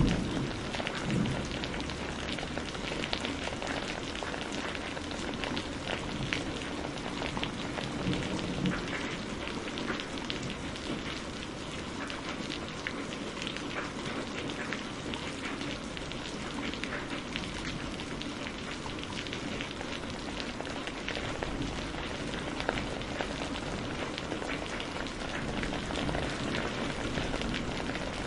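Steady rain falling: an even hiss full of individual drops ticking. Low rumbles of thunder come in near the start and again about eight seconds in.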